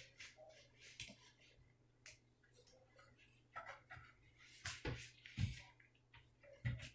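Cloths wiped by hand in rubber gloves over glossy kitchen cabinet doors: irregular faint rubbing and squeaking strokes, with a few louder knocks and rubs about five seconds in and again near the end.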